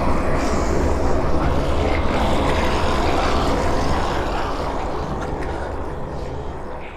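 Designed devil/demon horror sound effect: a dense low rumbling drone that holds steady, then fades out over the last few seconds.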